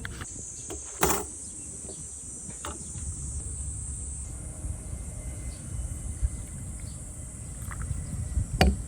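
Steady high-pitched insect chorus over a low outdoor rumble, with a sharp knock about a second in and another near the end.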